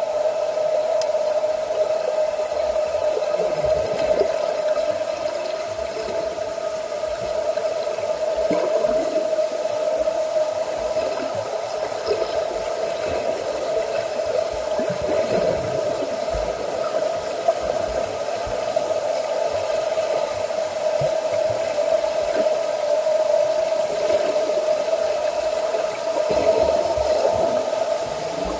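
Steady swimming-pool din: a constant machine hum holding one unchanging tone, over a wash of water noise.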